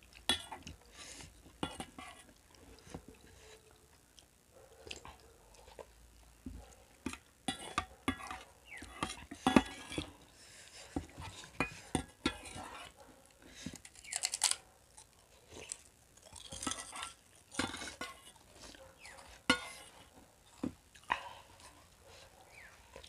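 Metal spoons clinking and scraping in stainless steel bowls, with close-up chewing, in irregular sharp clicks.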